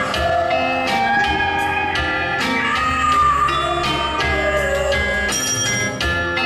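Live band music with a steady beat, over which a woman sings in gliding, drawn-out notes.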